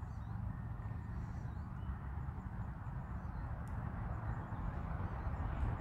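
Outdoor ambient noise: a steady low rumble with faint bird chirps now and then.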